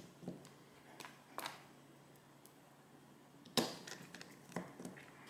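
A few faint, scattered clicks and taps of small parts and a tool being handled inside an opened smartphone, with one sharper click about three and a half seconds in.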